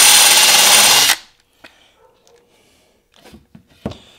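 Electric drill running at full speed as a sharpened spade bit bores into white-laminated particleboard, stopping suddenly about a second in. Afterwards a few faint knocks, with one sharper knock near the end.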